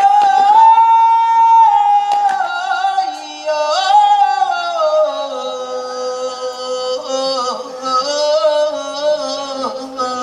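A solo voice singing a slow, ornamented melody in long held notes that slide gradually lower over the first half and then settle, with a quieter, lower sustained note moving in steps beneath it.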